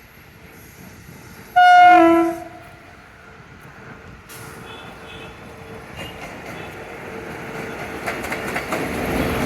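Electric locomotive's horn sounding one short blast about one and a half seconds in, then the approaching train's rumble on the rails building steadily louder.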